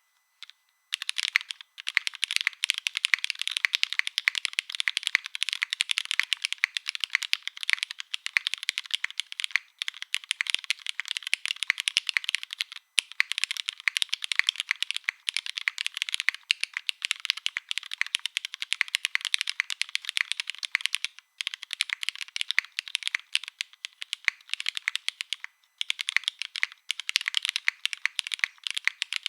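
Fast, continuous typing on a Saevus Cor65 gasket-mounted mechanical keyboard with Cherry MX Black linear switches, lubed springs, GMK keycaps and no foam dampening. It is a rapid clatter of keystrokes starting about a second in, with a few brief pauses.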